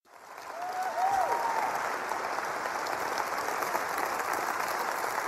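Audience applauding, fading in at the start and then holding steady, with a brief rising-and-falling call from someone in the crowd about a second in.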